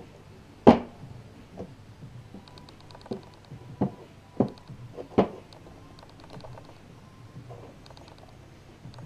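A pit bike engine's metal cylinder head knocking against the wooden bench as it is turned over and set down by hand: six separate knocks, the loudest less than a second in and the rest spread over the next four and a half seconds. Short runs of faint, fast, high ticking come and go.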